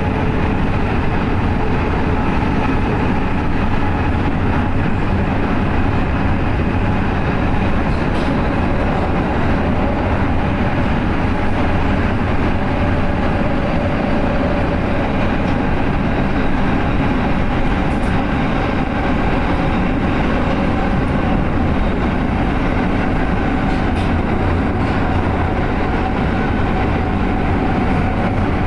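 R143 subway car running at speed through a tunnel: a steady, loud rumble of wheels on rail with a faint steady hum and a few faint clicks.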